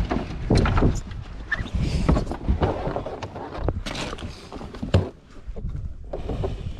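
Irregular knocks, clunks and rustling of handling gear and a just-caught fish aboard a small fishing boat, over a low rumble of wind and water, with one sharp knock about five seconds in.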